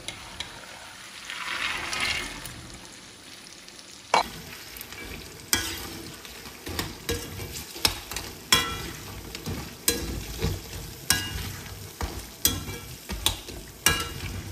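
Dried buffalo meat tipped into hot spiced oil in an iron wok, sizzling. After about four seconds a metal spatula stirs it, scraping and clanking against the wok about once a second.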